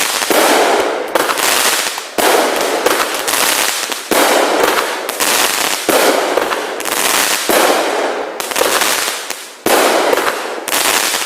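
A 19-shot consumer firework cake firing shot after shot, about one a second. Each shot is a sudden bang that fades out over most of a second.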